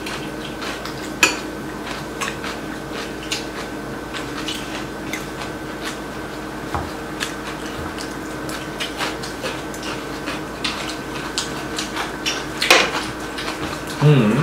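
Metal spoons and chopsticks clinking and tapping against ceramic bowls and plates, in scattered light clicks with one louder clank near the end.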